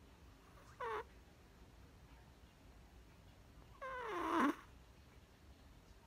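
A sleeping chihuahua puppy makes two pitched noises in its sleep, each falling in pitch: a brief one about a second in and a longer, louder one about four seconds in.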